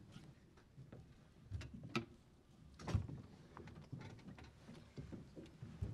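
Faint, scattered knocks and clicks of people settling in at a panel table, with chairs and objects on the table being moved.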